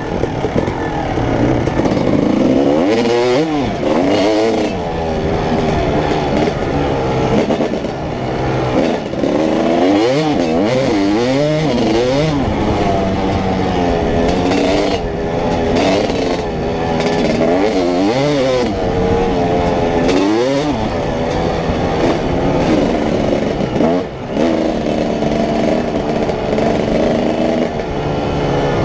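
Dirt bike engine heard from the rider's helmet camera, revving up and dropping back again and again as the rider accelerates and shifts. About three-quarters of the way through the engine briefly drops away, then holds a steadier pitch.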